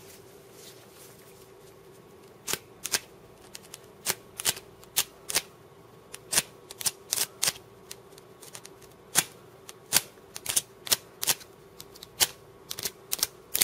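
Small flint (ferro rod) fire starter on a paracord bracelet being struck again and again with its striker: short, sharp scrapes, irregular at about two a second, starting about two and a half seconds in. These are fumbling attempts to throw sparks, a tool the user admits he is not too good with.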